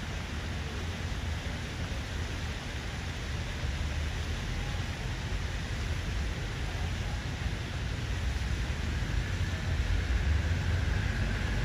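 Fountain water falling from the jet and splashing into the stone basin, a steady hiss, over a low rumble that grows louder toward the end.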